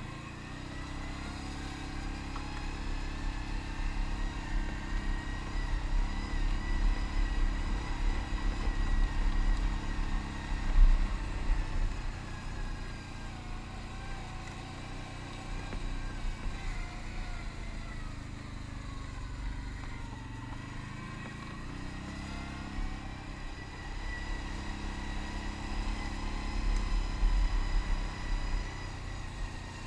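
Can-Am ATV engine running on a rough dirt trail, its pitch rising and falling with the throttle. There is a single loud thump about eleven seconds in, and the engine eases off and picks up again around twenty seconds in.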